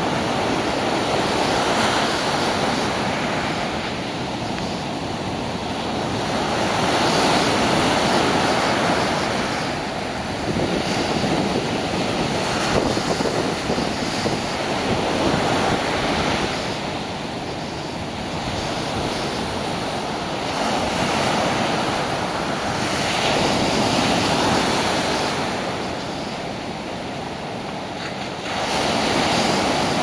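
Rough sea surf breaking on a beach: a continuous rush of wave noise that swells and eases in surges every several seconds.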